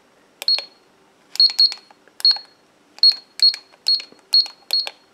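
Raymarine ST6001+ autopilot control head beeping as its keypad buttons are pressed: about nine short high beeps, each with a button click, at uneven intervals. The unit is responding to its keys again after its corroded circuit-board traces were rebuilt with magnet wire.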